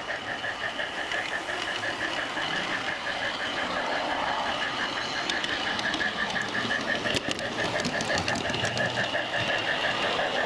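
Large-scale garden railway train running along the track, its drive giving an even, pulsing whine about five times a second, with a short run of sharp clicks from the wheels about seven seconds in.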